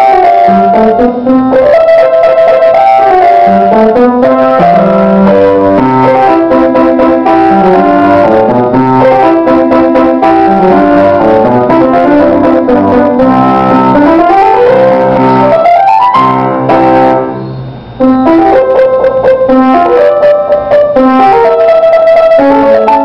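Grand piano played solo: a steady stream of notes in running passages. About fifteen seconds in, a fast rising run climbs to a high note, followed by a brief pause of about a second before the playing resumes.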